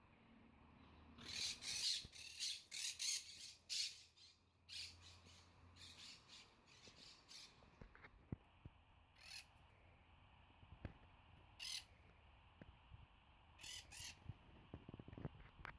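Parrots squawking: a quick run of harsh, screechy calls in the first few seconds, then single calls every two seconds or so.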